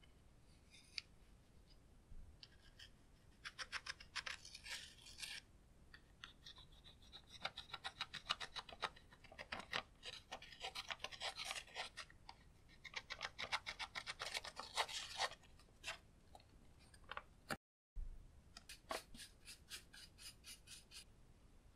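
A tool scraping pressed eyeshadow out of the pans of a plastic palette: runs of quick scratchy strokes, several separate bursts of them.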